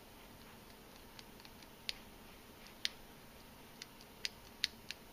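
About half a dozen faint, sharp clicks at irregular intervals, the loudest between two and five seconds in. They come from small steel parts of a Ruger Mark I pistol bolt being handled as its extractor is worked against its spring-loaded detent.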